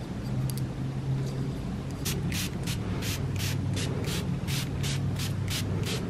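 Small pump spray bottle misting in quick repeated squirts, about a dozen hisses at roughly three a second starting about two seconds in, over a steady low hum.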